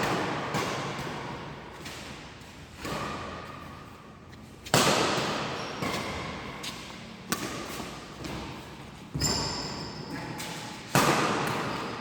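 Sharp cracks of badminton rackets hitting a shuttlecock in a rally, one every two seconds or so, each ringing out in the echo of a large sports hall, with fainter clicks and a brief shoe squeak in between.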